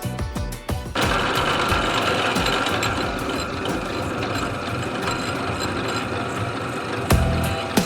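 Steady, harsh metalworking noise that starts about a second in and breaks off near the end, with background music beating before and after it.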